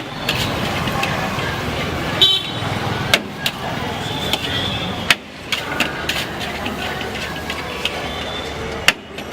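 Vehicle horns honking in short toots several times over steady street traffic noise, with sharp knocks now and then.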